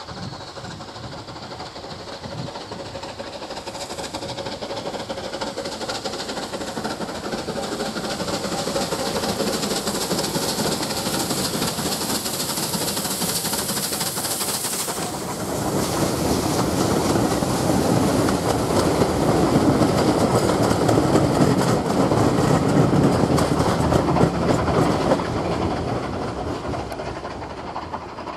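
Bulleid 'West Country'-class three-cylinder 4-6-2 steam locomotive No. 34007 Wadebridge approaching under steam with its train, growing steadily louder, then passing close by about halfway through. The coaches follow with a louder rumble and rapid clicking of wheels on the rails, which fades out near the end.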